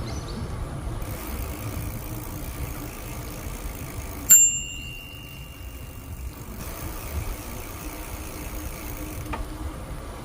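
A bicycle bell struck once about four seconds in, a bright ding that rings on for a second or so, over the steady low rumble of the ride.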